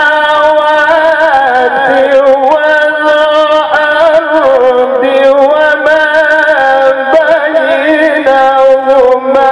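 Male Quran reciter chanting in the melodic tilawah style, drawing out long, ornamented notes that waver and shift in pitch, with hardly a break.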